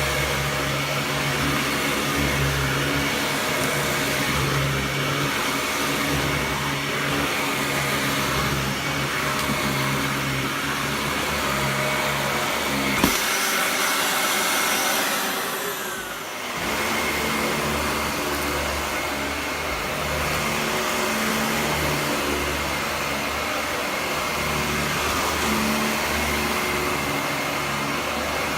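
Dyson DC41 Mk2 upright vacuum cleaner running steadily with a high whine and a low rumble. About halfway through there is a click, and the low rumble drops out for a few seconds before coming back.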